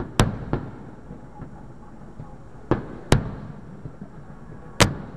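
Aerial fireworks shells bursting, about five sharp bangs spread through a few seconds, the loudest a little after the start, about three seconds in and near the end, each trailing off in a short rumble of echo.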